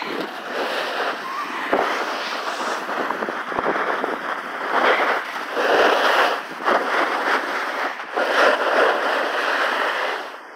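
Skiing or snowboarding edges scraping and chattering over hard-packed snow in rough, crackling swells, with occasional sharp clicks.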